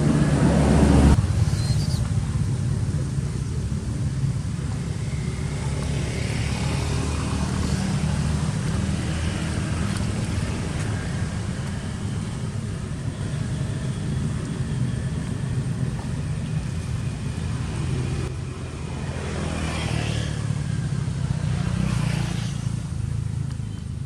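Steady low engine rumble, like a motor vehicle running, with two swells that come and go about a quarter of the way in and again near the end.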